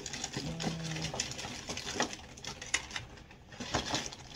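Hands rummaging through a cardboard box of makeup: plastic cosmetic cases, bottles and tubes clicking and knocking against each other, with light rustling.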